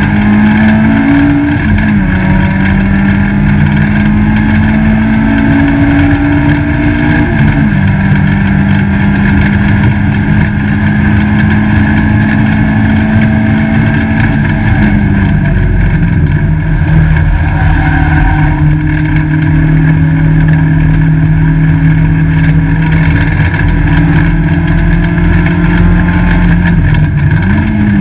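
Peugeot 205 GTi race car's four-cylinder engine running under load, loud inside the stripped cabin. It holds a steady pitch that steps down a few times and wobbles up and down near the end.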